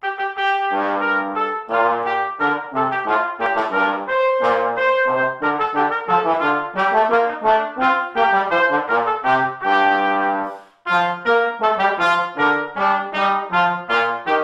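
Trumpet and trombone playing a duet of a church hymn arrangement, the trumpet on the melody over a lower trombone line, note by note. The playing starts out of silence and breaks off briefly about eleven seconds in before going on.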